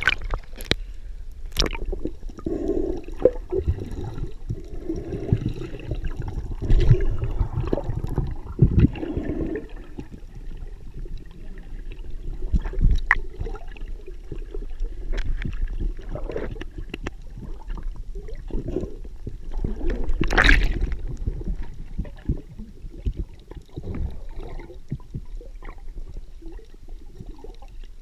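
Water sloshing and gurgling, heard with the microphone underwater and at the surface: a muffled low rumble scattered with small knocks and clicks. There is a louder rush of water about twenty seconds in.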